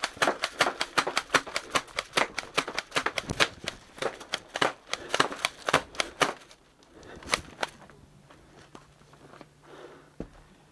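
Airsoft guns firing during close-quarters play: a rapid, irregular string of sharp snaps for about six and a half seconds, then a few scattered single shots.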